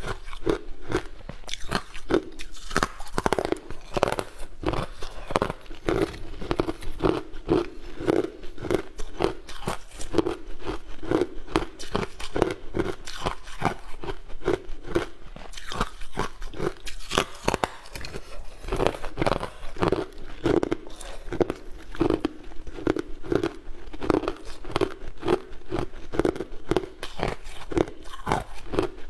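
Crunching of ice: bites snapping off a frozen slab and steady crunchy chewing of the pieces, about one to two crunches a second.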